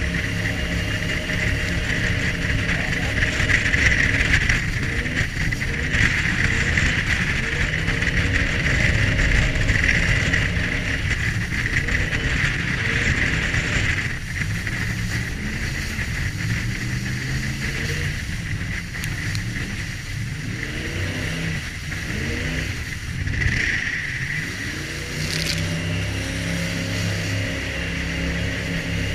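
Jet boat engine running hard, with the rush of water and spray alongside. In the middle stretch the engine pitch falls and rises several times, then steadies again.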